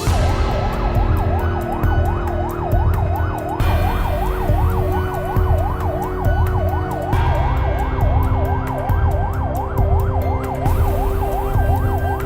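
Emergency vehicle siren in fast yelp mode, its pitch rising and falling about three to four times a second, over a heavy low rumble.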